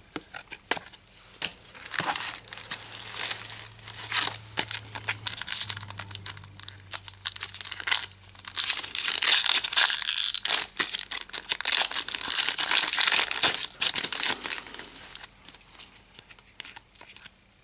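Foil trading-card pack wrapper crinkling and tearing as it is opened, with the cards inside handled. Irregular rustling and clicks, loudest for several seconds past the middle, quieter near the end.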